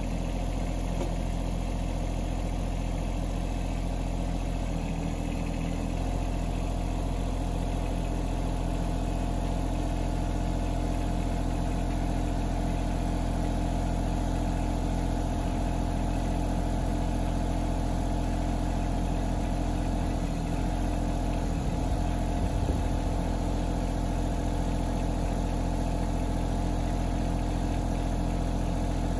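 Yanmar SA324 compact tractor's three-cylinder diesel engine running steadily at idle while the YL210 front loader's hydraulics are worked to hook on and curl up the quick-attach bucket. The engine note shifts briefly about five seconds in and again around twenty seconds in.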